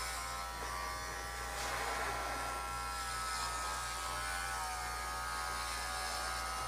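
Cordless electric pet clipper running, a steady buzz as it shears through the dog's tail fur. Its pitch wavers slightly now and then.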